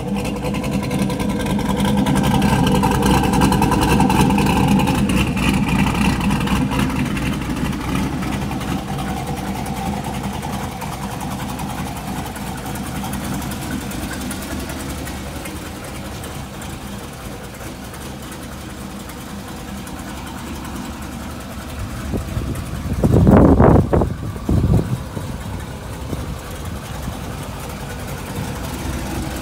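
Modified C5 Corvette V8 with a BTR Stage 2 cam, long-tube headers and a custom exhaust with bypassed mufflers, idling steadily. It is louder in the first several seconds. Two short loud bursts come about three-quarters of the way through.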